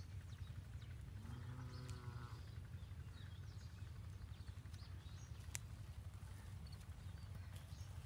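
A single pitched animal call lasting about a second, shortly after the start, over a steady low rumble. A sharp click comes about five and a half seconds in.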